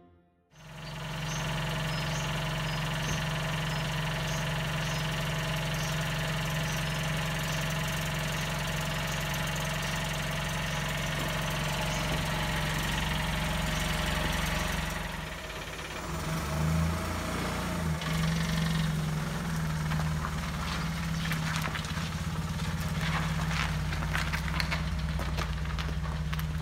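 Fiat 500 engine idling steadily, its note wavering unevenly for a few seconds around the middle.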